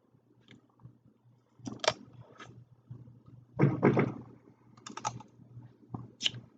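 Irregular clicks and crackles of crab shells being cracked and picked apart while eating, with the loudest cluster about four seconds in.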